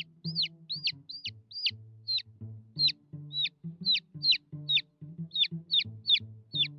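Baby chicks peeping: a quick, steady run of short high cheeps, each falling in pitch, about three a second, over soft background music.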